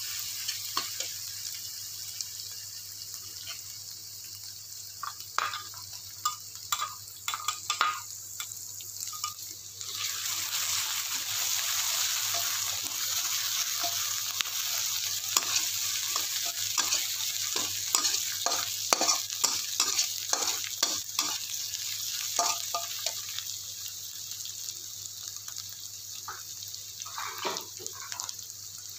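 Chopped garlic, shallots and chillies sizzling in hot oil in a metal wok, sautéed until fragrant, while a metal spatula stirs them, clinking and scraping against the pan in short quick strokes. The sizzle grows louder about ten seconds in and eases again near the end.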